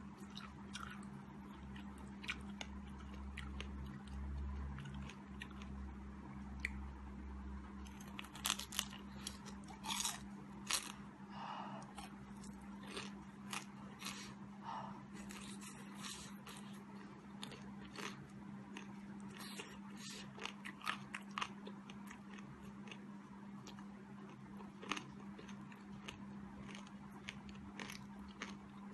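Crunching and chewing of deep-fried battered crab, the crisp crust crackling in many sharp bites, thickest in the middle stretch, over a steady low hum.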